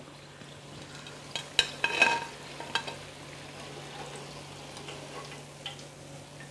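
Hot oil sizzling in a kadhai as crisp, double-fried cauliflower florets are lifted out with a wire skimmer, with a few light clinks and scrapes of the skimmer against the pan about one and a half to three seconds in.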